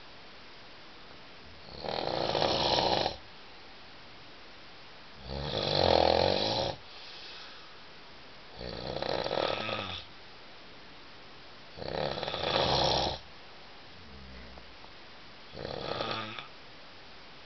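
A man snoring loudly in his sleep: five long rasping snores, one about every three and a half seconds, the last one shorter and weaker.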